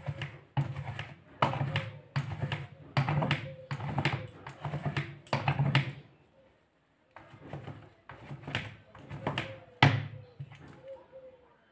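Ripe palmyra palm fruit rubbed hard against a wooden scraping board set with metal teeth, grating the fibrous pulp off the seed: rhythmic rasping strokes, about two to three a second, with a short pause about six seconds in.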